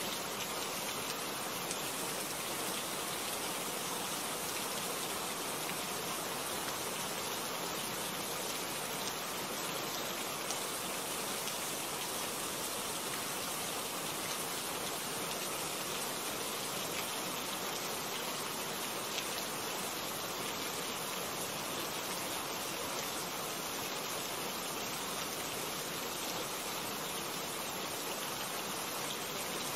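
Steady rain falling: an even hiss, with the odd single drop ticking out a little louder.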